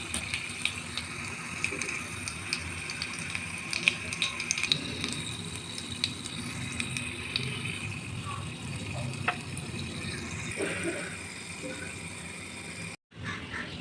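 Something frying in a pan: a steady sizzle with scattered crackles and light stirring clicks, busier in the first few seconds. The sound cuts out for a moment near the end.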